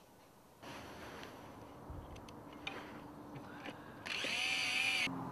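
Small cordless Li-ion screwdriver motor whirring for about a second near the end as it turns a screw on a bicycle bottle cage, after a few faint clicks.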